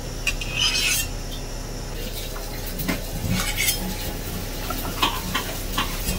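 A large metal kitchen knife and metal forks clink and scrape against a ceramic plate as sliced cooked pork belly is slid off the blade onto it. The sound is a scattering of short clinks and scrapes, with a longer scrape about half a second in.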